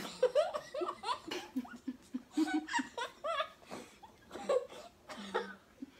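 Laughter breaking out suddenly and going on in repeated bursts.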